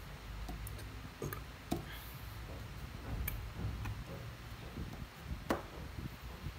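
Xiangqi (Chinese chess) pieces being picked up and set down on the board: a handful of sharp, irregularly spaced clicks and taps, the loudest about five and a half seconds in.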